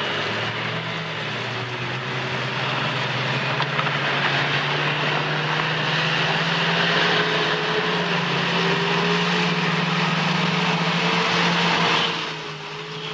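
Mercedes-Benz G-Class off-roaders driving through a shallow, stony river: steady engine running with water splashing and rushing around the wheels. The sound drops and grows more distant about twelve seconds in.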